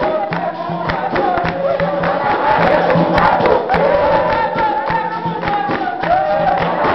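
Capoeira roda music: a group of voices singing together in chorus over sharp hand-percussion strokes.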